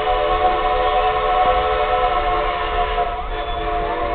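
A steam locomotive's chime whistle blowing a long, steady blast, heard from inside a passenger coach. It eases slightly about three seconds in.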